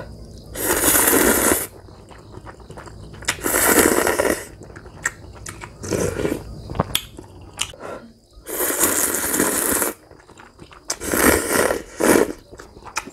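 Ramyeon noodles being slurped in four long slurps of about a second each, with chewing and small mouth clicks between.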